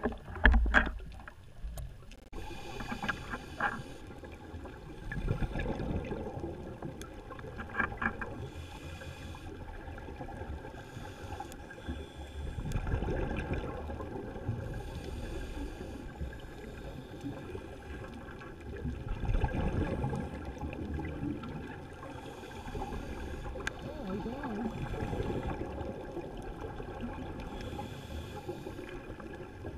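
Muffled underwater sound through a camera housing: scuba regulator breathing, with swells of hiss and rumbling exhaled bubbles every few seconds. A couple of sharp knocks in the first second.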